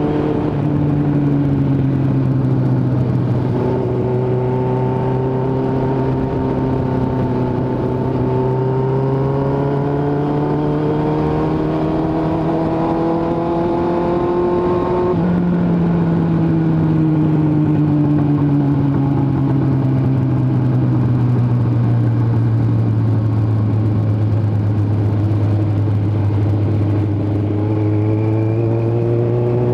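Suzuki GSX750F inline-four running through a straight-through exhaust with no muffler, heard from on the moving bike. The engine note climbs slowly for about fifteen seconds, changes abruptly, then falls slowly and begins to rise again near the end.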